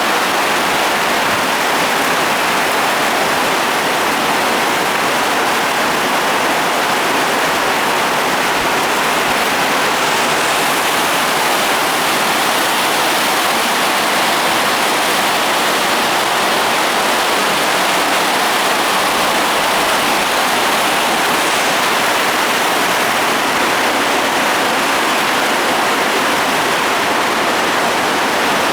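Heavy rainstorm downpour: a loud, steady hiss of rain falling without let-up.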